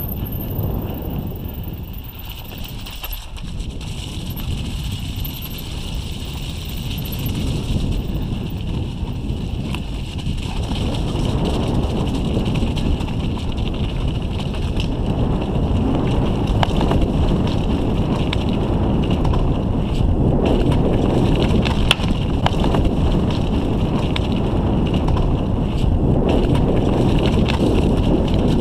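Mountain bike rolling down a rocky dirt trail: wind buffeting the onboard camera microphone over the rumble and rattle of the tyres and bike, with occasional sharp clicks. It grows louder about ten seconds in.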